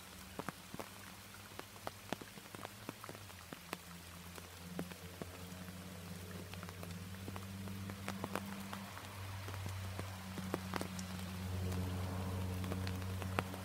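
Rain falling, with many separate drops ticking sharply close by. A steady low hum runs underneath and grows louder in the second half.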